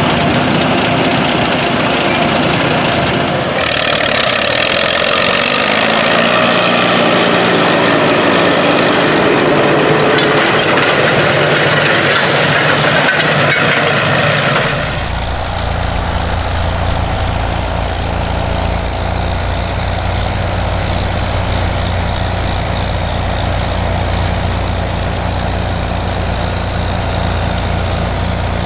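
Engines of a pair of Allis-Chalmers WD tractors hitched in tandem, running under load as they pull a disk harrow, with dense harsh noise over the engine sound. About halfway through the sound changes abruptly to the steady, low drone of an IH Farmall M and 560 team pulling a plow.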